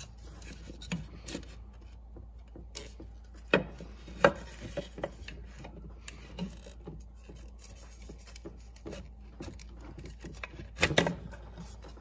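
Factory intake horn and its rubber boot being twisted and worked free by hand from the turbo inlet, rubbing and scraping against the surrounding parts. A few louder knocks stand out: two about 3.5 and 4 seconds in, and a short cluster near the end.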